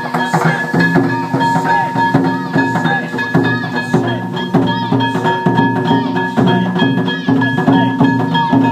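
Festival float music: drums and other percussion struck in a steady rhythm over pitched notes, with a steady high ringing tone that fades near the end.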